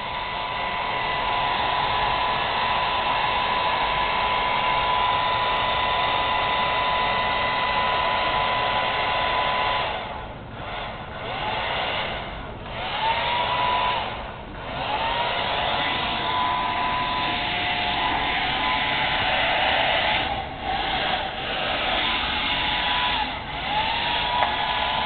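Handheld hair dryer on a coiled cord blowing steadily with a motor whine. In the second half it cuts out briefly several times and whines back up to speed each time.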